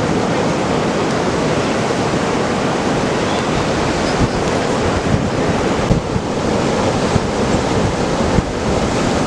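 Ocean surf from a hurricane swell, a steady loud wash of breaking waves, with wind buffeting the microphone.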